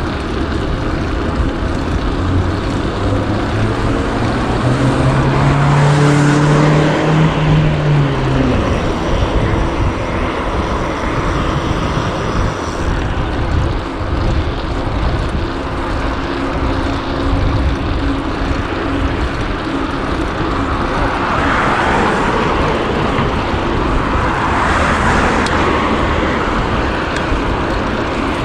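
City street traffic heard from a bicycle: motor vehicles passing over steady road noise, with one engine climbing in pitch and loudest about five to eight seconds in.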